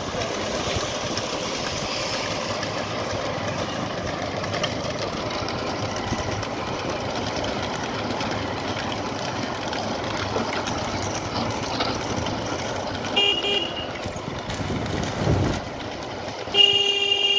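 Steady noise of moving road vehicles, with a short vehicle-horn toot about 13 seconds in and a run of quick repeated honks near the end.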